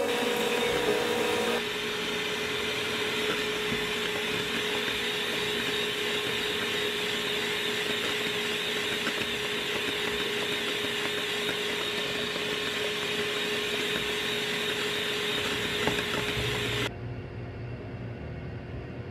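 Electric hand mixer beating cake batter in a stainless steel bowl, with a stand mixer whipping meringue alongside: a steady motor whine at one constant pitch. It cuts off suddenly near the end, leaving a quieter low hum.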